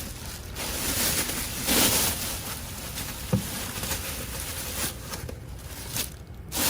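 Rustling and rubbing as a plastic bathtub liner is handled and smoothed into place, with one sharp click about three and a half seconds in.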